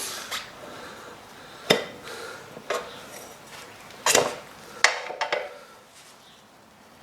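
Metal tyre levers knocking and clinking against a motorcycle wheel rim as the rear tyre is levered off, a few sharp strikes with scraping between them, the loudest a little after four and five seconds in.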